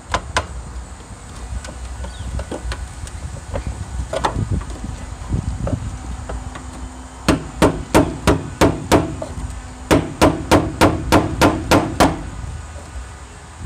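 Hammer blows driving a screwdriver against a rusted-in steel fuel-pump lock ring on a Pontiac Firebird's fuel tank, knocking it round to free it. A few scattered knocks come first, then two quick runs of sharp strikes in the second half, about three a second.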